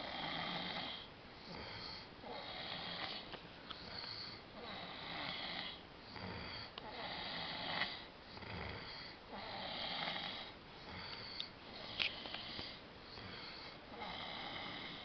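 A drunk man snoring in his sleep, one snore every one and a half to two seconds in a steady rhythm. A short sharp click sounds about twelve seconds in.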